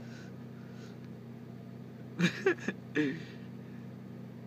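Car engine idling, a steady low hum heard from inside the cabin. Between about two and three seconds in, three short bursts of a person's voice cut in over it.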